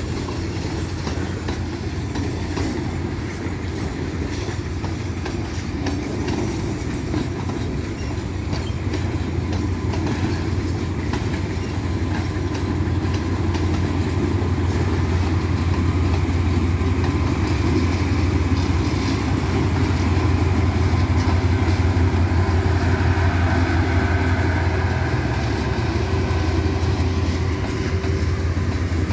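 Freight train of loaded hopper wagons rolling past, wheels clicking over the rail joints. From about ten seconds in, a mid-train GE U20C diesel-electric locomotive working in dynamic braking passes, adding a steady low engine drone that is loudest around twenty seconds in and fades as the following wagons roll by.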